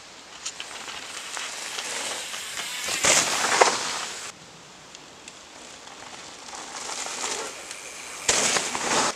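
Mountain bike tyres rolling and skidding over dry fallen leaves, a crackling rustle that swells to a loud pass about three seconds in, cuts off abruptly, then builds to a second loud pass near the end.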